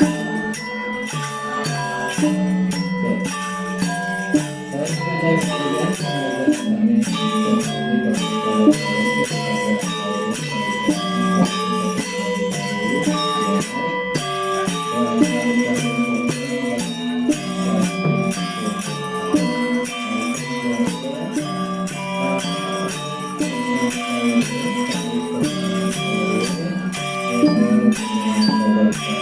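Balinese gamelan angklung ensemble playing a classical piece: many metallophone and gong-chime notes in a fast, busy, unbroken rhythm over a steady low tone.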